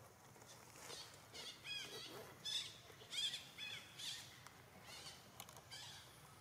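Dry leaf litter rustling and crackling under a foraging long-tailed macaque, mixed with a quick run of short, high, arching chirps that are loudest in the middle.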